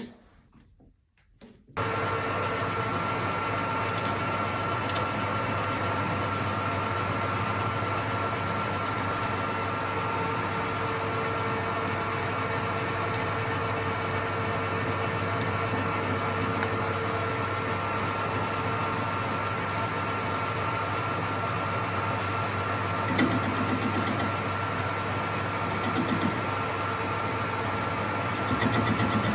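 Workshop lathe's electric motor switched on about two seconds in, then running steadily with a constant hum and whine, with a few brief knocks of the work near the end.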